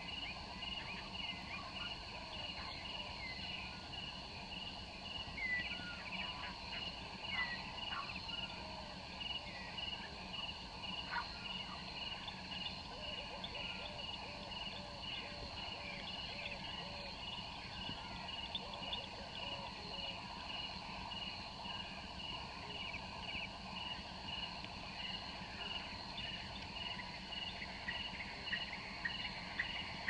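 Rural field ambience: insects trilling steadily in a pulsing rhythm, with scattered short bird calls over it and a run of low repeated notes in the middle.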